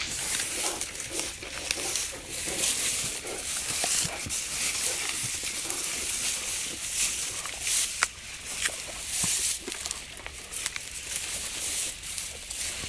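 Great Danes grazing in tall grass: grass rustling and stalks tearing close by as they eat, with scattered sharp clicks. The dogs are eating grass to purge themselves.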